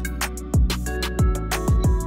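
Background music with a steady beat: a deep kick drum about twice a second and sharp percussion over held notes.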